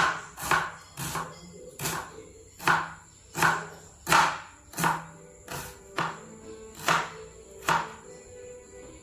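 A kitchen knife chopping a red onion on a plastic cutting board: about a dozen sharp knife strikes, roughly one every half to three-quarters of a second, stopping near the end.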